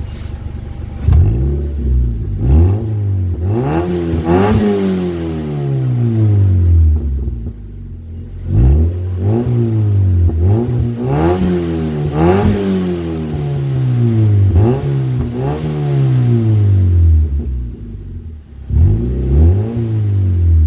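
Mazda Miata NC's four-cylinder engine running loud with no muffler, like a straight pipe, and not warmed up. It is revved again and again from idle, each rev rising sharply in pitch and falling back, about a dozen times, with idle spells between the bursts.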